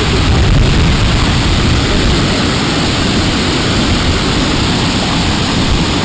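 Girlevik waterfall's several cascades pouring down a rock face: a loud, steady rush of falling water with a deep rumble underneath.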